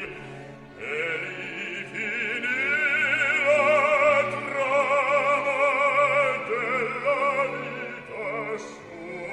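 Operatic singing with a strong vibrato over orchestral accompaniment, the voice holding long notes through the middle.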